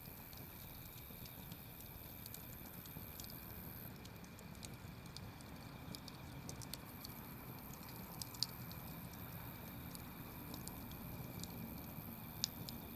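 Wood campfire crackling: scattered sharp snaps and pops over a low, steady rush of burning, with a few louder pops in the second half.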